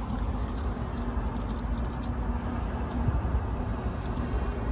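Steady low outdoor rumble with a faint hum, and a few light clicks of a metal wristwatch being turned over in the hand.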